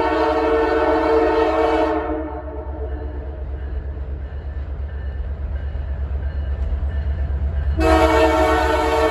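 Diesel locomotive horn sounding a loud chord of several notes that cuts off about two seconds in. The locomotive's engine rumble runs underneath and grows louder. The horn sounds again near the end.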